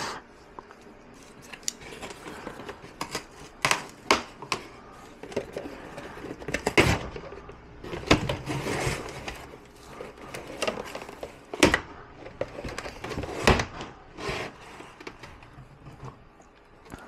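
Cardboard packaging being cut with a knife and pulled about: irregular scraping and rustling with a string of sharp knocks and clicks.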